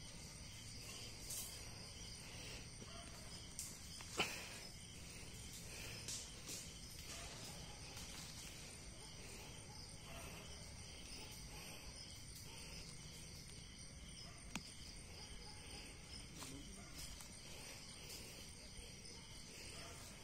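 Steady high-pitched chorus of night insects, with a few faint clicks and rustles in dry leaf litter as wild mushrooms are picked by hand; the sharpest click comes about four seconds in.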